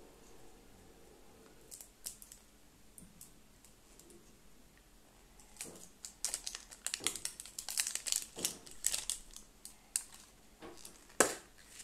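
Wrappers from a surprise egg crinkling and tearing as they are pulled out and opened by hand. The crinkling starts about halfway through, and there is a sharp click near the end.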